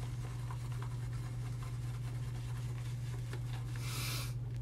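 Razor scraping across a lathered scalp in faint short strokes, over a steady low hum. A short hiss comes about four seconds in.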